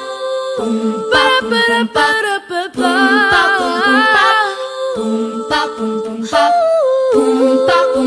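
Background music: voices singing held notes with a wavering vibrato over a steady beat.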